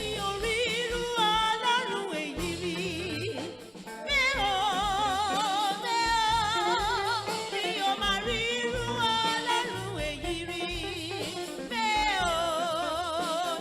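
A solo voice singing a sustained, wavering praise melody over instrumental backing.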